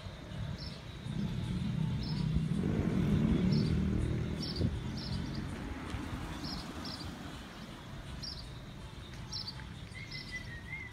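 Street ambience: a car drives past, its rumble swelling to a peak a few seconds in and then slowly fading, while a bird gives short high chirps about once a second.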